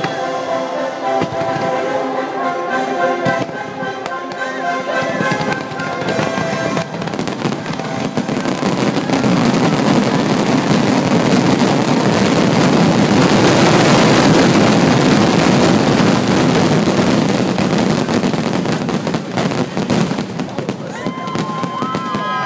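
Fireworks finale: a dense barrage of overlapping bursts and crackling shells that builds to its loudest around the middle and thins toward the end. Orchestral show music plays under the first several seconds, then is drowned out.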